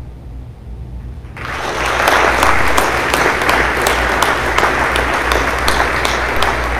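A small, spread-out audience applauding, with individual claps standing out. The clapping starts about a second and a half in, after a brief lull with only a low hum.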